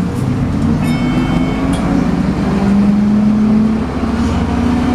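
MAN 18.240LF bus's diesel engine running under load with its 'hoovering' whine. The pitch rises over a couple of seconds and drops near the end, and a brief high-pitched tone sounds about a second in.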